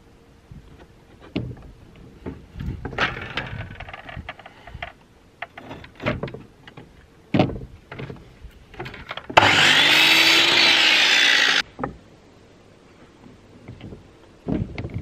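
Wooden battens knocking and clattering as they are set on a Biltema miter saw's table. Then the saw runs for about two seconds, cutting through a batten, its pitch rising and then sagging under the cut before it stops suddenly.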